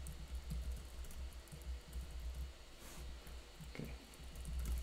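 Computer keyboard typing: a run of irregular key clicks as a short sentence is typed, over a low steady hum.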